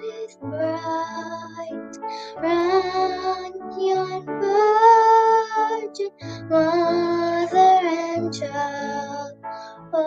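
A young girl singing, holding long notes in phrases of a second or two, over an instrumental backing with steady low notes beneath the voice.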